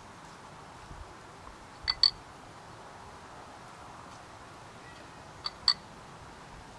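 Sharp metallic clicks of metal grilling tools against a portable charcoal grill, in two quick double clicks about three and a half seconds apart.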